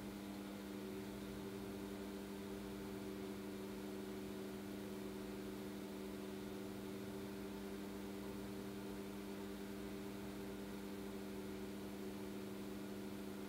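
Steady low hum made of a few held tones over a faint hiss.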